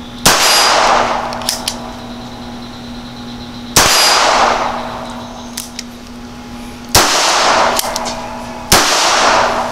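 Four pistol shots from a Bond Arms Stinger double-barrel derringer-style pistol in .380 ACP, each a sharp report with a short ringing tail; the last two come less than two seconds apart. Faint clicks can be heard between the shots.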